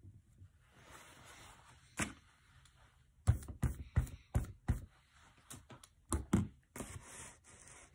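Rag rubbing over the inked linoleum block, then a quick run of sharp knocks and thunks, about five in a second and a half, as the rubber brayer is handled over the block, with two more knocks near the end.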